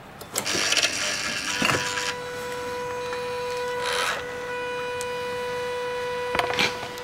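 Electric fuel pump of a 2008 Kawasaki Brute Force 750 priming: fuel spatters out of the disconnected line into a glass jug for about the first two seconds, and the pump motor gives a steady whine until near the end. The pump delivers only about half the fuel it should over three prime cycles, which the mechanic puts down to a failing fuel pump.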